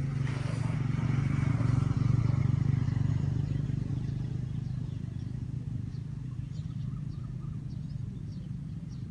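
A motor vehicle engine, such as a motorcycle or car, running with a steady low hum. It grows louder to a peak about two seconds in, then slowly fades as it passes, and faint short high chirps are heard over it.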